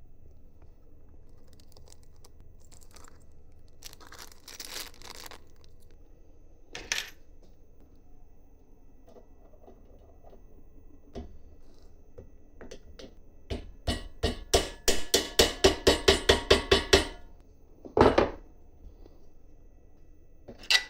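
Hand assembly work on a 3D printer kit, with small parts and tools being handled. There is a rustle, a few single knocks, and a run of about a dozen evenly spaced clicks, three or four a second, lasting a few seconds.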